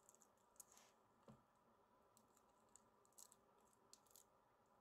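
Near silence: faint room tone with a few faint, brief clicks.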